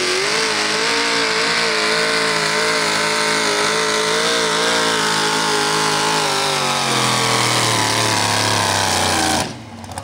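Supercharged engine of a Pro Modified four-wheel-drive pulling truck running at full throttle while it drags the sled, its pitch wobbling, then sagging lower as the truck slows. The engine cuts off abruptly a little past nine seconds in.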